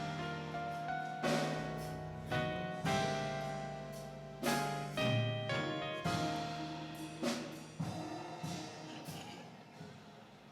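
Instrumental music: chords with sharp struck accents about once a second, gradually fading out.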